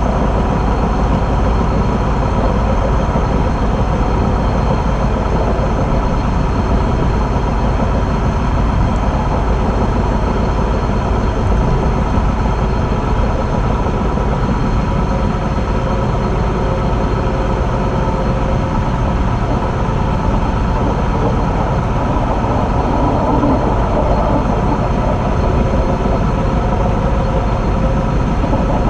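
Train running along the track: a steady rolling rumble and rush of noise with a few faint steady hums over it.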